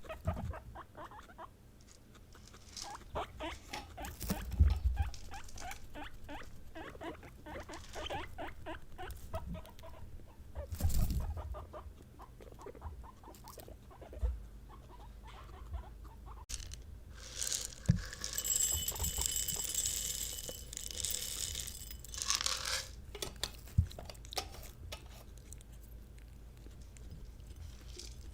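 Guinea pigs making quick, repeated pulsing sounds, with a stretch of loud rustling a little past the middle and a few sharp knocks.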